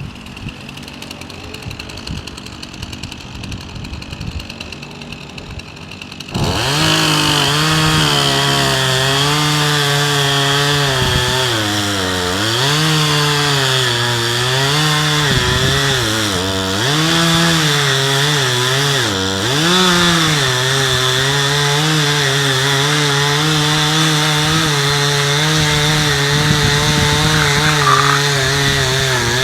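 Two-stroke chainsaw idling unevenly, then throttled up to full speed about six seconds in and cutting into the trunk of a rotten chestnut tree. The engine note dips several times as the chain bogs down in the wood, then recovers.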